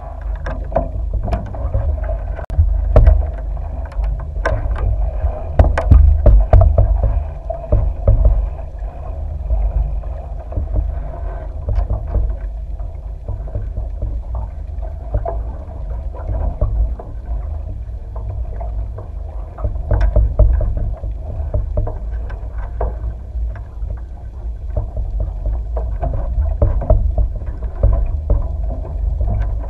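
Muffled underwater rumble of water moving around the capsized 49er skiff's hull, picked up by a submerged camera, with many sharp knocks and clicks. The knocks are thickest in the first seven seconds, with another strong one about twenty seconds in.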